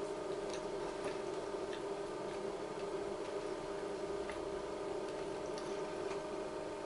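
Steady hum of room tone with faint, light ticks about every half second.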